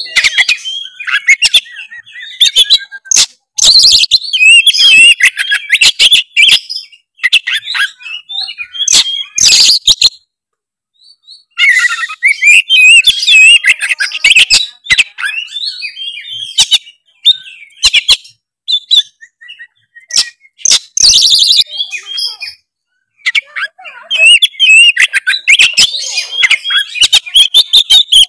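Oriental magpie-robin (kacer) in full, energetic song: loud, fast, varied whistles and sharp chattering notes in long bursts, broken twice by short pauses.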